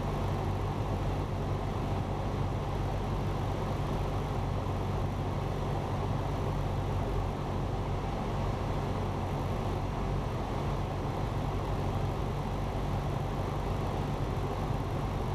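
Cessna 172 Skyhawk's piston engine and propeller droning steadily in cruise, heard from inside the cabin.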